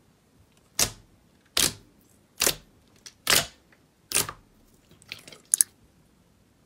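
Clear jelly-like slime pressed and stretched by fingers, giving about five sharp wet pops roughly a second apart, then a few quicker, smaller clicks near the end.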